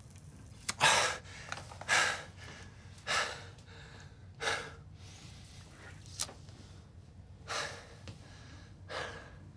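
A boxer's heavy, sharp breaths during training: six hissing puffs of breath, about one to one and a half seconds apart, with two short clicks in between.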